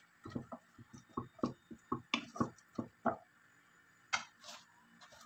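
Wooden spatula stirring and tossing fettuccine in a saucepan: a quick, uneven run of soft knocks and scrapes against the pan for about three seconds, then one more knock about four seconds in.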